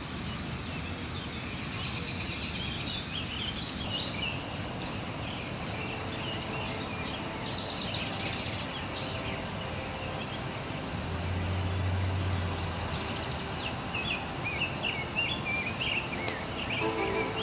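Outdoor ambience of birds chirping on and off over a steady background hiss. A low hum swells briefly about two-thirds of the way through.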